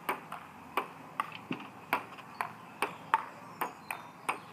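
Table tennis rally: the ball clicks sharply off the bats and the table in a steady rhythm, about two to three hits a second.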